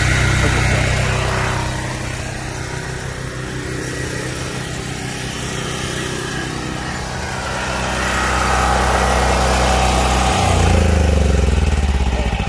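Tractor engine running steadily, with a change in engine pitch a little past two-thirds of the way through.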